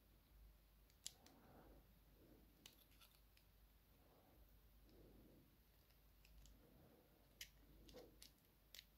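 Faint metal clicks and scrapes of pliers working at the C-clip on the back of a euro cylinder's plug, a few sharper ticks standing out about a second in and twice near the end.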